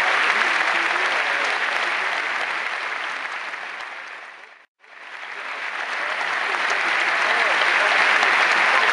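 Crowd applauding and cheering, a dense steady clapping. It fades out to silence about halfway through and fades straight back in.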